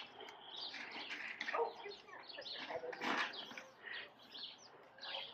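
Faint chirping of small birds, many short scattered calls, with a few soft rustles.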